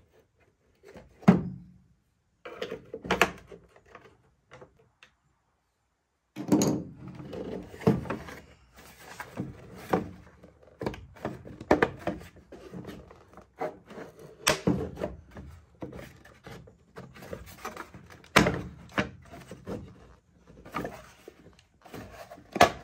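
Plastic housing of a GMC Sierra power side mirror being unscrewed and pried apart by hand: sharp plastic clicks and knocks over rubbing and rattling of the parts. There is a break of about two seconds of silence a few seconds in.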